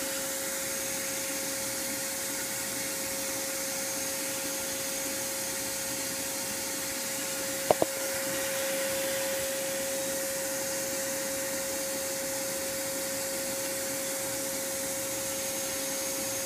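Bee vacuum running steadily, its motor giving an even rushing hiss with a constant whine as it draws a bee swarm up a long PVC pipe. Two sharp clicks come close together about eight seconds in.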